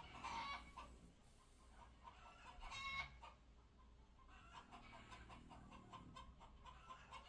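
Hens clucking and cackling, faint and scattered, the clearest call about three seconds in. The hens are making the sound they make, maybe after one has laid or been scared off her nest, with the others joining in.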